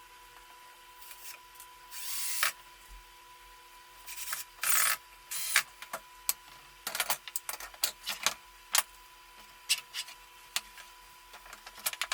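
Hand work on wood in a workshop: irregular short scraping and rubbing strokes mixed with sharp clicks and small knocks, over a faint steady high hum.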